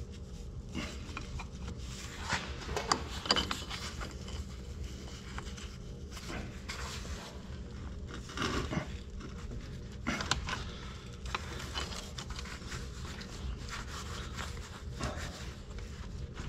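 Scattered clinks and scrapes of metal wrenches being handled and fitted to hydraulic hose fittings, over a steady low hum.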